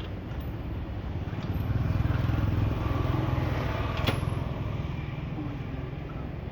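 A low mechanical rumble, like a passing engine, that swells for a couple of seconds and then fades, with one sharp click about four seconds in.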